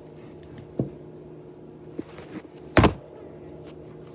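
A few short knocks and clatters of kitchenware being set down on a counter, the loudest near three seconds in, over a steady low hum.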